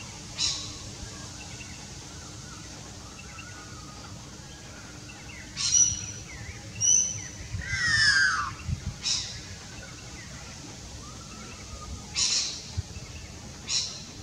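Leucistic white Australian magpie calling: several short calls spread through, the longest a downward-sliding call about eight seconds in.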